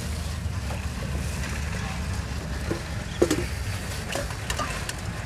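Busy street-stall ambience: a steady low motor hum with faint voices and scattered light clicks and taps.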